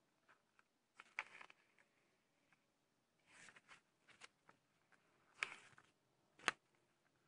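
Pages of a glossy paper booklet being turned by hand: several brief rustles and flaps of paper, with one sharp snap of a page near the end.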